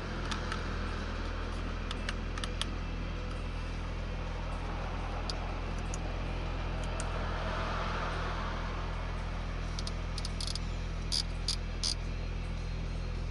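Audi S4's turbocharged V6 engine running steadily at an unchanging low pitch, with no revving or shifts. A few faint light clicks sound near the end.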